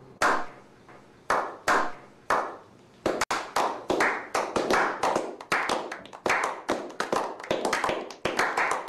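Slow clap by a small group: a few single, echoing hand claps spaced out at first, quickening from about three seconds in into steady applause.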